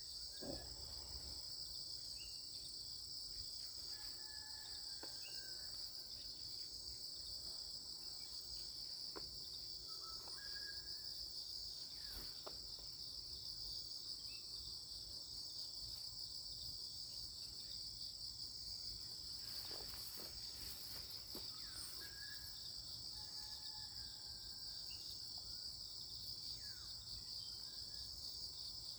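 Insect chorus giving a steady high-pitched buzz without a break, with faint short chirps and a few light clicks scattered through it.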